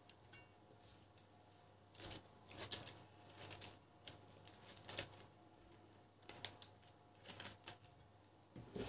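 Shredded cabbage crackling and rustling faintly as hands press it down into a pot, in short scattered clusters.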